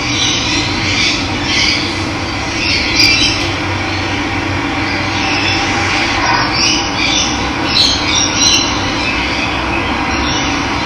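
Steady rush of running water, with birds chirping and calling over it again and again.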